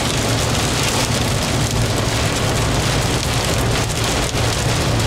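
Pea-size hail and heavy rain drumming on a vehicle's roof and windshield as a dense, steady patter of many small hits, heard from inside the cab over the vehicle's steady low hum.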